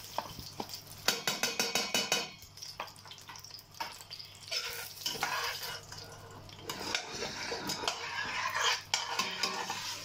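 Metal slotted spoon scraping and stirring lumps of ghee melting in a steel pot. A run of quick clicking scrapes comes about a second in, then a longer stretch of scraping later on.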